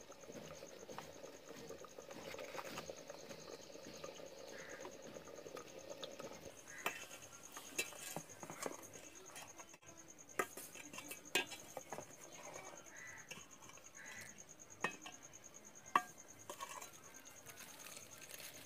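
A metal ladle stirring dal in a metal cooking pot, knocking sharply against the pot several times from about seven seconds in. A faint steady high whine runs underneath throughout.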